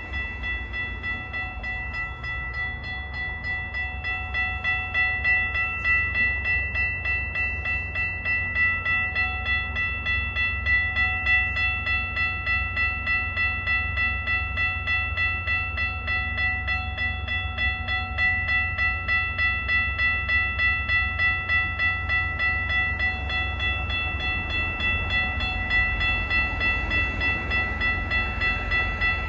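A railway warning bell ringing steadily in quick, even strokes over the low rumble of a Metra bilevel commuter train.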